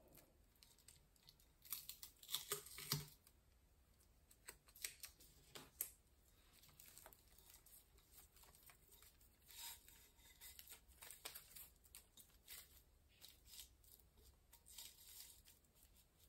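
Faint rustling, crinkling and light clicks of a self-adhesive rhinestone ribbon being handled, peeled and pressed onto a glass vase over a silver mesh wrap. The sounds come in short scattered bursts, a little louder about two to three seconds in.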